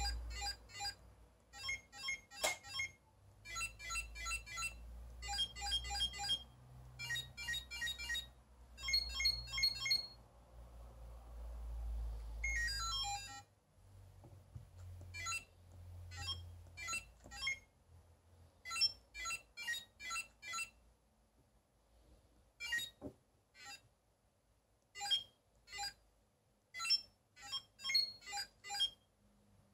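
Commodore CHESSmate chess computer's built-in beeper sounding runs of short electronic beeps as its keys are pressed and it shows moves.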